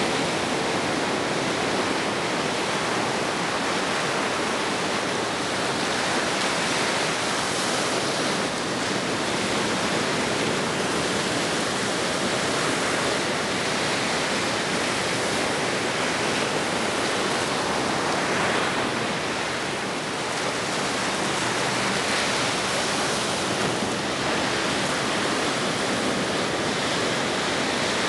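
Steady wash of ocean surf: even noise of breaking waves with only slight swells in level.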